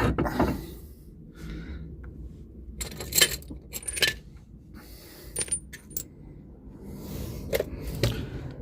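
Scattered light metallic clinks and taps of small steel parts and tools being handled during brake work, a few of them ringing briefly.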